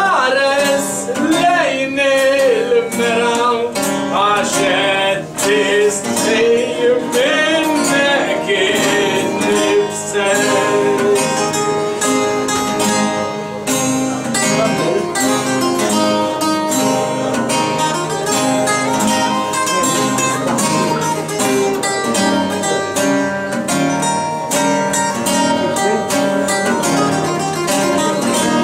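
Maltese għana: a man's voice singing a folk melody over several acoustic guitars strumming chords and a lead guitar picking fast runs. The voice drops out about ten seconds in, and the guitars play on alone with rapid picked lines.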